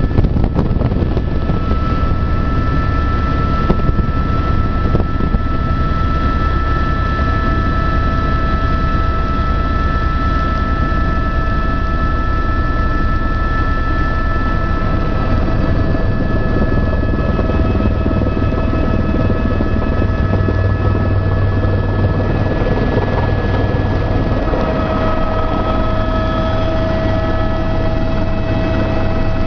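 Helicopter cabin noise in flight: a loud, steady drone with several steady whining tones layered over a deep rumble.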